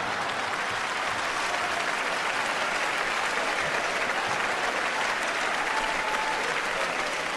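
Large theatre audience applauding steadily in response to a comedian's joke.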